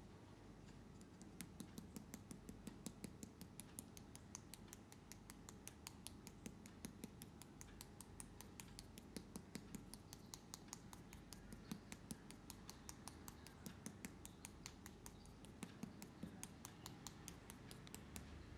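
Barber's scissors snipping, faint. A quick, even run of crisp snips, about four or five a second, starts about a second in.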